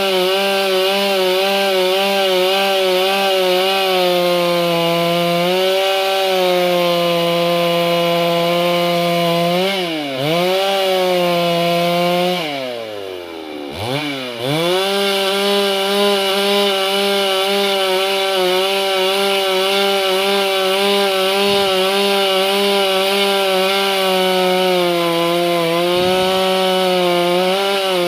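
Stihl MS 382 two-stroke chainsaw running at high revs, cutting through wood, its pitch wavering slightly under load. The revs dip briefly about ten seconds in. About halfway through, the throttle falls almost to idle and the saw revs straight back up, with another quick dip near the end.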